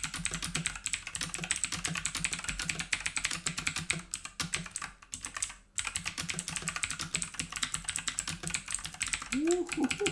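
Fast typing on an Aukey 88-key mechanical keyboard: a dense, continuous run of clicking keystrokes, with a brief pause about five and a half seconds in. A short vocal sound comes near the end.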